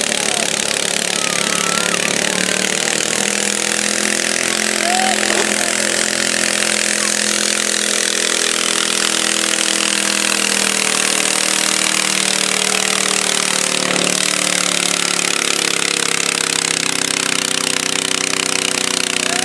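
Garden tractor engine running hard and steady under load as it pulls a weight-transfer sled.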